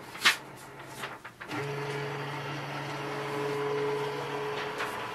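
Canon PIXMA MG2524 flatbed scanner running a scan: a sharp click, then about a second and a half in the scan motor starts a steady hum as it drives the scan head under the glass, stopping just before the end.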